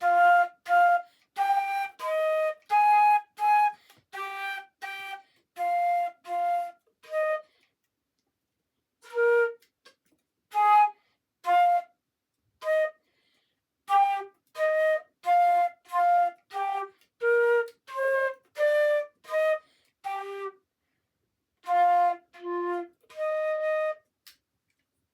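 Concert flute playing a simple beginner's melody in short, separated notes, with a brief pause about a third of the way through and the tune ending just before the close.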